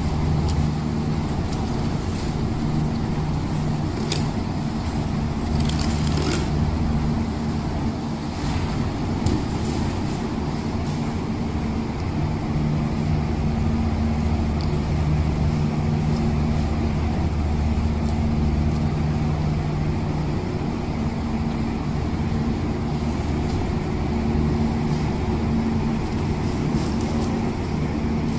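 Steady low machine hum with a few evenly pitched tones, with a few brief sharp clicks from knife work on the tuna.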